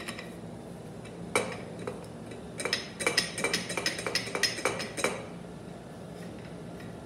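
Light metal clinking from a TH400 clutch drum with its newly assembled clutch pack being handled and turned on a shaft: one clink about a second in, then a quick run of clinks for about two seconds.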